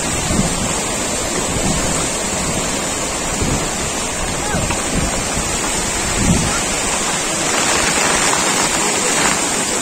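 Swollen, fast-flowing flood stream rushing, a loud steady roar of water.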